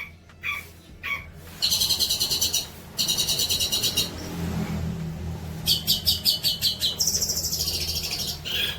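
Songbird tutor-song recording: several bursts of fast trills of rapidly repeated high notes, with a short lull midway and a higher, thinner trill near the end, over a steady low hum.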